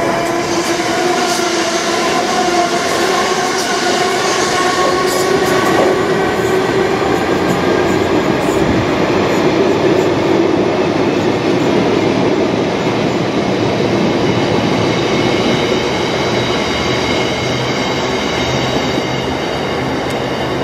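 Wagons of a long diesel-hauled aggregate freight train rolling past at speed: a steady rumble of wheels on rail, with wavering whining tones from the wheels, easing slightly toward the end.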